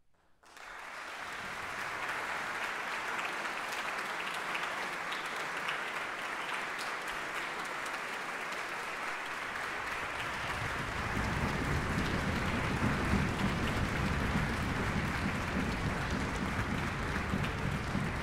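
Concert-hall audience applause breaking out about half a second in and carrying on steadily, growing fuller and a little louder about ten seconds in.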